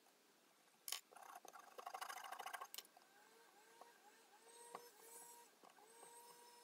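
Bark being pried and scraped off a piece of wood with a chisel: a sharp crack about a second in, then about two seconds of rough crackling scraping, followed by a few light knocks and clicks.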